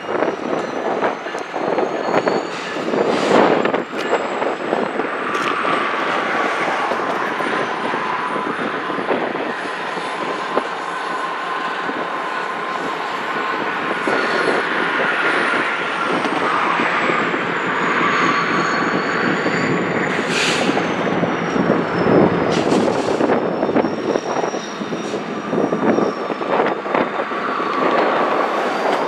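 Freight rail yard noise: cars rolling with long, high-pitched wheel squeal that slowly rises and falls in pitch over a steady din of train movement. Several sharp metallic clanks come through.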